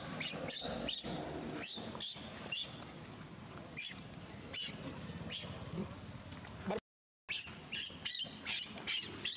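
Macaques, among them a baby, giving repeated short high squeaks and chirps, several a second. The sound cuts out briefly about seven seconds in.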